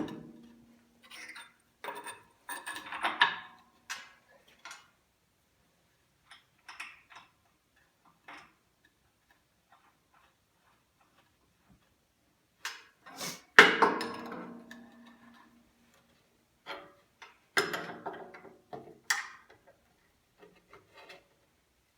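Scattered clicks, knocks and clunks of an MDF sanding disc and its arbor nut being handled and fitted onto a table saw arbor, with quiet gaps between; the loudest is a sharp clunk with a short ring about halfway through, and another follows a few seconds later.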